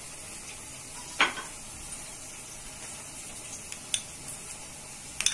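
Cornflour-coated potato tikkis frying in oil in a kadhai, a steady sizzle. A sharp click about a second in and a couple of lighter clicks later.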